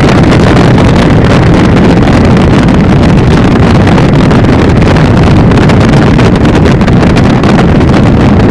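Helicopter in flight heard from on board: a loud, steady rumble of rotor and engine noise, with wind buffeting the microphone.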